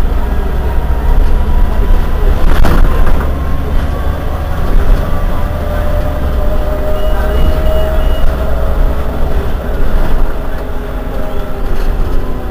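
Irisbus Iveco Citelis 18 articulated bus running, a steady low engine rumble with a whine that slowly rises in pitch from about four seconds in. A loud knock comes about two and a half seconds in, and four short high beeps sound a little before the end.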